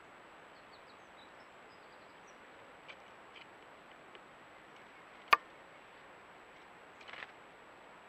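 Steady hiss of a trail camera's microphone outdoors, with faint short bird chirps in the first couple of seconds. A few soft ticks follow, then one sharp click a little after five seconds and a short cluster of ticks about seven seconds in.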